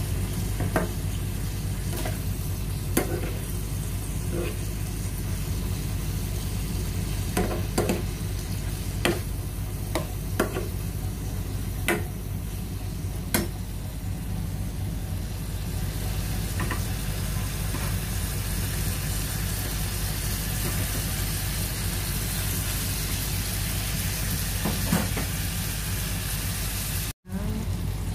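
Mixed seafood sizzling in a frying pan while a metal spatula stirs it, clacking and scraping against the pan every second or so in the first half. Later the stirring stops and only the steady sizzle goes on over a low hum, with a brief cut-out near the end.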